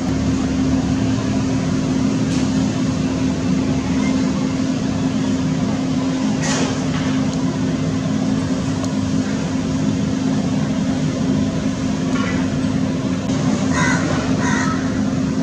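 A loud, steady machine drone with a constant low hum. A few faint, brief sounds rise over it in the middle and near the end.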